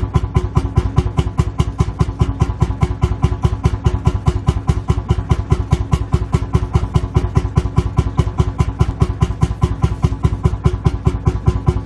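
Lanz Bulldog tractor's single-cylinder two-stroke engine idling with its steady, rapid knocking beat, about five firing strokes a second.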